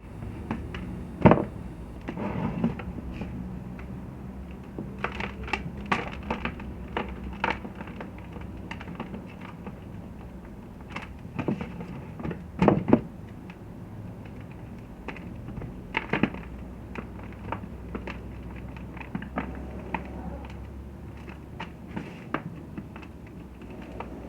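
Blocks of gym chalk being crushed: irregular crunches and sharp snaps, loudest about a second in and again around the middle.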